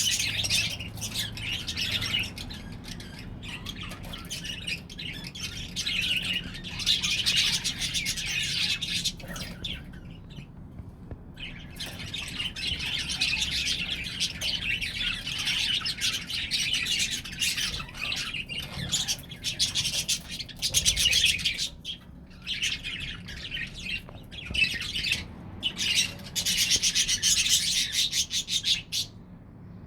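A colony of budgerigars chattering: many birds' quick warbles and chirps overlapping in a dense, continuous chorus. There are brief lulls about ten seconds in and near the end.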